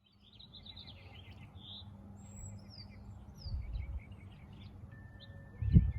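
Several wild birds chirping and calling, with quick repeated chirps and a few high, falling whistles. A low rumble of wind or handling on the microphone comes in around the middle, and a louder low thump near the end.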